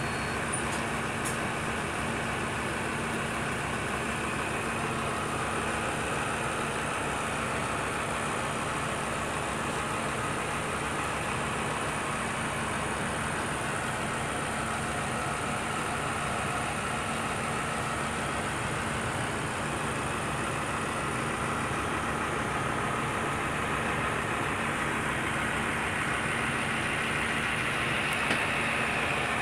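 Scania K320UB city bus running, heard from inside the passenger cabin: a steady drone of engine and running gear with a constant low hum, unchanging throughout.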